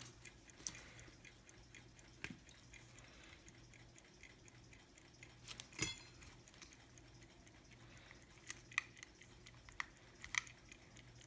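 Small, scattered clicks and taps of a pocket watch and its hands being handled while the hour hand is fitted, with one sharper click about six seconds in and a few more near the end.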